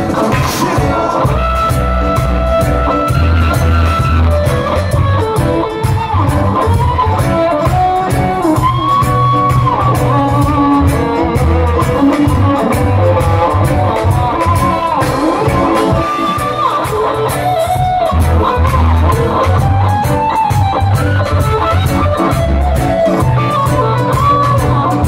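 Live reggae band playing through a concert PA: a heavy bass line and drums under guitars and keyboards, with a melodic lead line gliding above.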